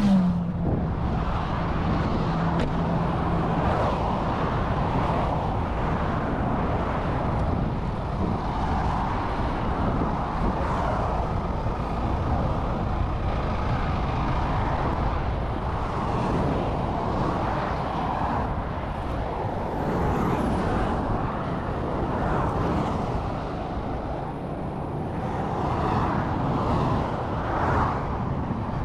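Heavy motorway traffic rushing past steadily, the tyre and wind noise of cars and trucks swelling and fading as each one goes by. A steady engine tone sounds in the first few seconds, then fades out.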